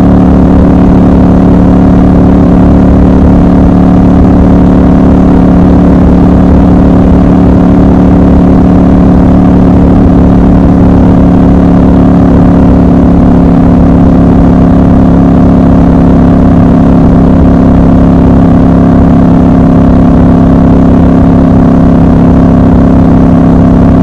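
Triumph Scrambler 1200 XC's 1200 cc parallel-twin engine and exhaust running loud and steady at an even highway cruise, its note holding one pitch throughout, with wind rumble underneath.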